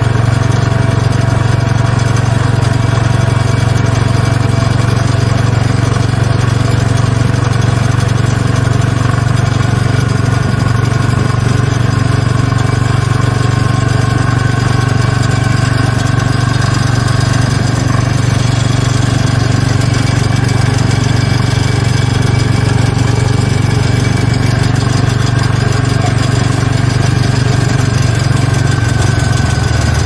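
Quad bike (ATV) engine running steadily, with no revving or change in pitch.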